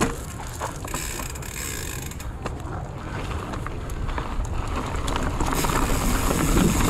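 Mountain bike rolling on a dirt trail: the rear hub's ratchet ticks rapidly while coasting, over a steady rumble of tyres on dirt that grows louder in the last couple of seconds as speed picks up.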